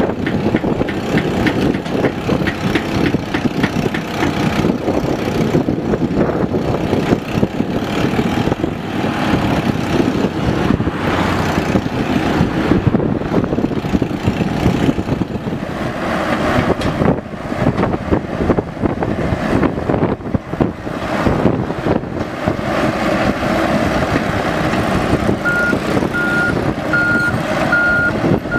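Mini excavator's diesel engine running steadily while it works. Near the end a backup alarm starts beeping at an even pace.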